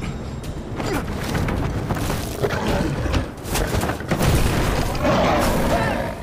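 A loud, dense run of booms and crashing impacts over a low rumble, like film action sound effects.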